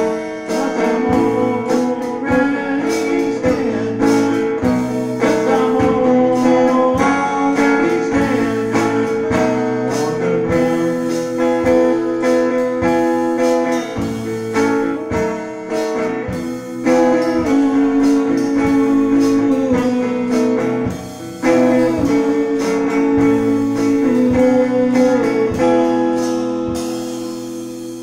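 A small live band playing a song: acoustic guitar and a drum kit with cymbals over steady held notes, with regular drum and cymbal hits. The music fades out near the end.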